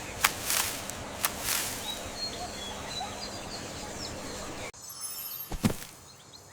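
Jungle ambience with small birds chirping faintly over a steady background hiss and scattered clicks; about two-thirds of the way through it cuts off suddenly to a quieter background with a few short knocks.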